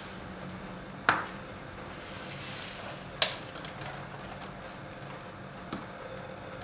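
Tan leather snap-flap folio being unfastened and unfolded on a table. Two sharp clicks come about a second in and again two seconds later, with a soft leather rustle between them and a fainter knock near the end.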